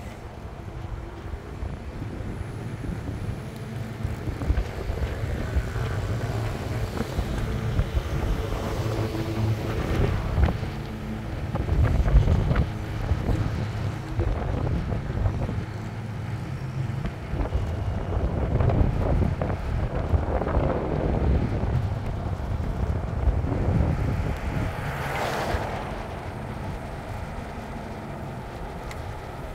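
A car driving slowly, its low road and engine rumble heard from inside, with wind gusting over the phone's microphone. There is a brief louder rush about 25 seconds in.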